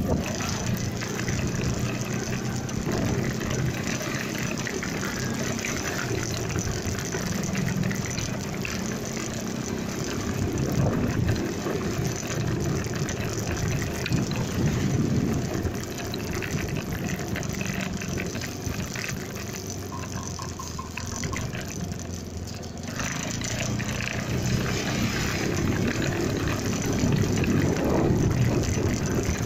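Motorcycle engine running while riding, mixed with a broad rush of wind and road noise over the phone's microphone. The rush eases for a few seconds about two-thirds of the way through, then builds again.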